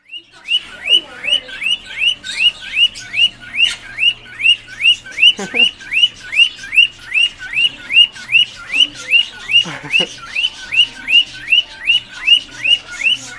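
Cockatiel calling over and over, a loud, steady string of short chirps that rise and fall, about three a second, like an alarm going off.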